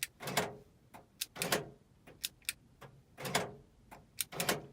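Power door locks of a 2005 Dodge Sprinter van being cycled from a dash lock switch: about four rounds of a short click followed closely by the clunk of the lock actuators.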